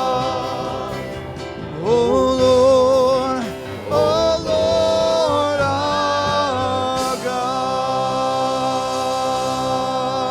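Gospel worship singing: voices holding long notes with vibrato over music. New phrases swell in about two and four seconds in, and one long held note follows.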